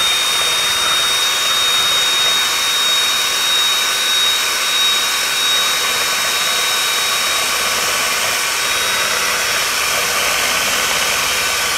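Electric hand mixer running at a steady speed, its beaters whirring through thin liquid in a plastic mixing bowl, with a constant high whine.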